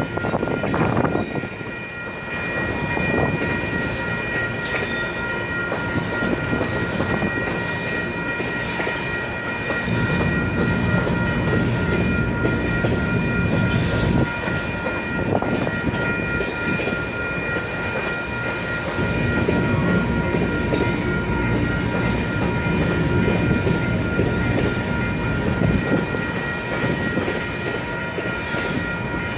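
Freight cars of a long grain train rolling slowly past, wheels rumbling and clacking over the rail joints in swells, with a steady high ringing tone held throughout.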